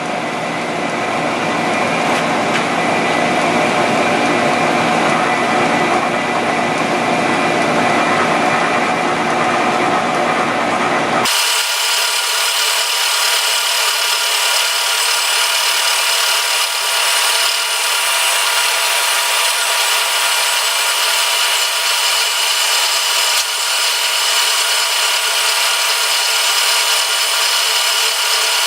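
Milling machine running and cutting metal on a mill vise: a steady, loud grinding drone with several fixed tones. About eleven seconds in, the sound changes abruptly and loses its low end.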